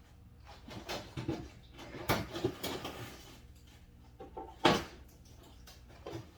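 Scattered knocks, scrapes and rattles of a Jeep Wrangler TJ's front fender and its parts being worked loose by hand. A busy run of them falls around the middle, and the loudest is a single sharp knock about two-thirds of the way through.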